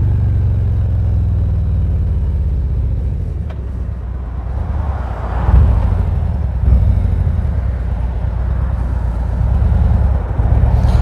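Harley-Davidson Ultra Limited V-twin engine running while riding, with rushing wind noise picked up by a lapel mic inside the helmet with the visor up. The wind noise swells about five seconds in.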